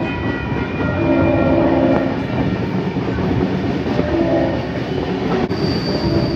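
Passenger train running at speed, heard through an open carriage window: steady rumble and clatter of the wheels on the rails.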